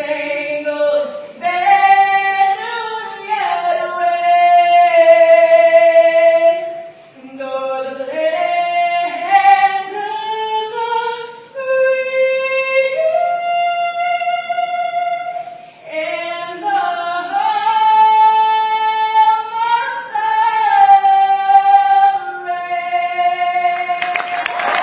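Unaccompanied singing, a single slow melody of long held notes in phrases, echoing in a large hall. Right at the end the crowd breaks into applause and cheering.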